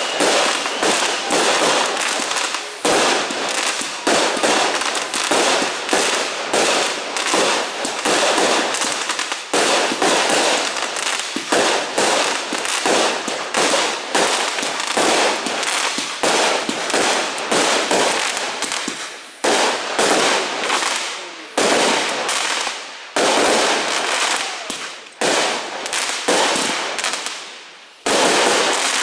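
Fireworks display: a rapid, dense run of aerial shell bangs and crackling, with a few short lulls in the second half.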